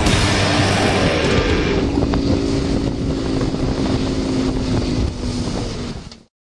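Mercury outboard motor on a ski-racing boat running at speed: a steady engine drone with wind noise on the microphone. It cuts off suddenly about six seconds in.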